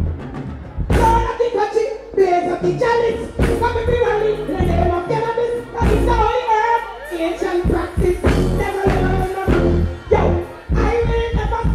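Live reggae performance through a stage sound system: a woman sings into a microphone over a backing track with a heavy pulsing bass.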